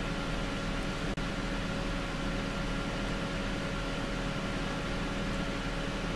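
Steady background noise: an even hiss with a low hum underneath and two faint steady tones.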